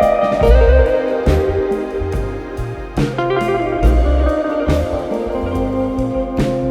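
Background music led by guitar, with a steady beat and bass.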